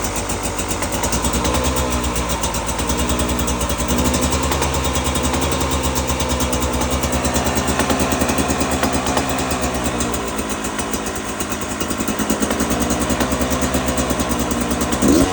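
2022 Beta 300RR's two-stroke single-cylinder engine running at low revs, its pitch rising and falling gently. The owner reports a clap or knock that comes only at the first revs above idle on this brand-new engine, and cannot tell its cause.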